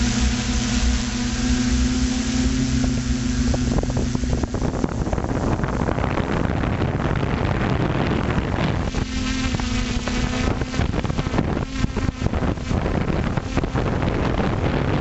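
Multirotor drone's electric motors and propellers whining steadily, heard close up from the onboard camera, with wind rushing and crackling over the microphone. The steady motor tone fades into the wind about four seconds in and comes back briefly around nine seconds.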